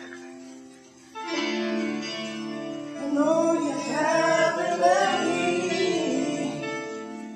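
Music: sustained chords with a plucked-string part entering about a second in, and a singing voice with wavering pitch rising over it in the middle.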